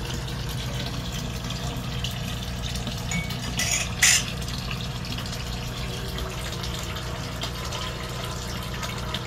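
Water running steadily in a crayfish tank, with a steady low pump hum underneath, typical of the tank's filter or aerator. A brief louder burst of noise comes about four seconds in.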